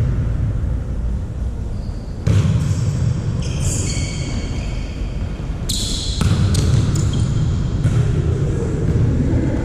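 Volleyball being played in a hall: ball thumps and short high squeaks, over a steady low rumble.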